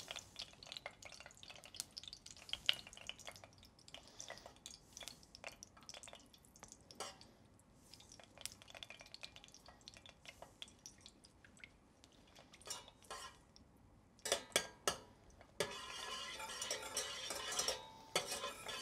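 Wire whisk stirring melting clarified butter in a stainless steel saucepan, its tines making quick, light clicks and scrapes against the metal. About three seconds before the end the sound thickens into a denser, steadier hiss with clicks, louder than the rest.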